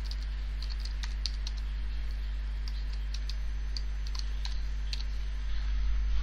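Computer keyboard keys tapped in a quick, irregular run as a name is typed, over a steady low hum that grows a little louder near the end.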